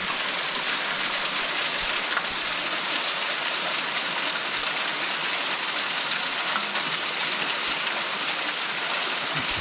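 Steady splashing hiss of a small waterfall, thin streams of water falling over rock into a pool.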